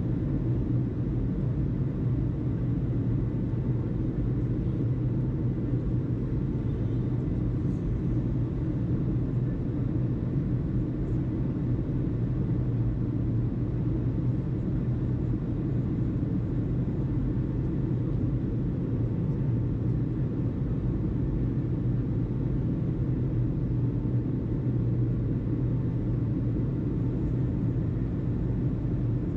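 Steady, unbroken low rumble with no changes in level.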